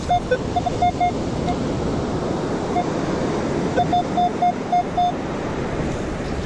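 Metal detector giving short, mid-pitched target beeps in two quick clusters, one at the start and one about four seconds in, sounding on a copper penny. Steady surf and wind noise lie underneath.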